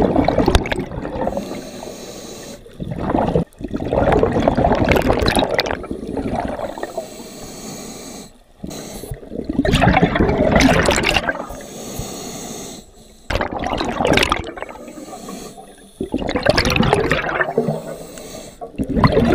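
Scuba diver breathing through a regulator underwater: a gush of exhaust bubbles on each exhale, about five times, with quieter stretches between.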